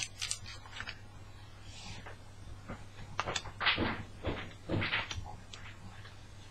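Panini Adrenalyn XL trading cards being handled: a few light taps and short swishes of card sliding on card, over a steady low electrical hum.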